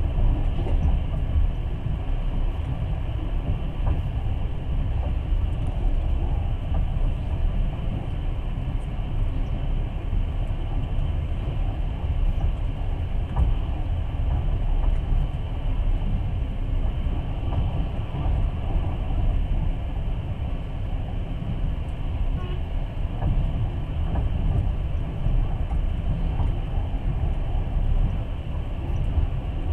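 Steady rumble of a moving passenger train heard from inside the carriage, with occasional faint clicks.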